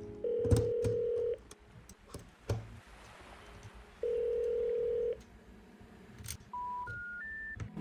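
Telephone ringback tone: two steady beeps of about a second each at the same low pitch, a few seconds apart. It is followed near the end by three short tones stepping up in pitch, the special information tone that signals a call cannot be completed. A few faint sharp clicks sound in between.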